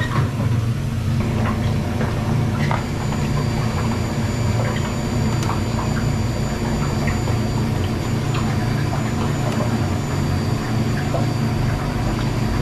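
Rice-cake (garaetteok) extruder running with a steady low hum as it pushes out long sticks of rice-cake dough. A thin high whine joins about three seconds in, with scattered light clicks and knocks from handling.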